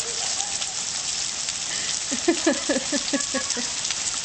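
Heavy rain pouring down, a steady hiss. About two seconds in, a quick run of short voice sounds from one of the children rises over it for a second or so.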